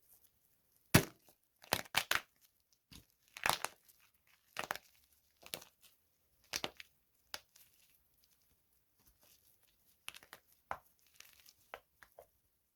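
Dry soap being crushed, crunching and crackling in a string of short, irregular breaks, the loudest about a second in.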